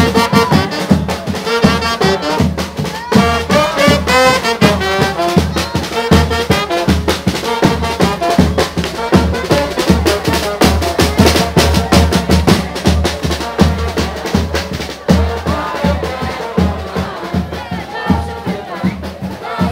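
Carnival brass band with drums playing a lively tune: brass carries the melody over fast, steady percussion.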